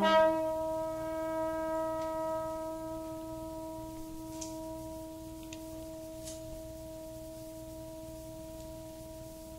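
Trombone ensemble holding one long, steady note that slowly fades.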